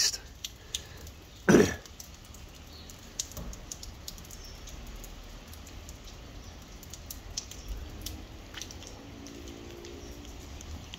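A person coughs once, sharply, about a second and a half in. Light scattered ticks follow, typical of rainwater still dripping from the trees after a heavy thunderstorm.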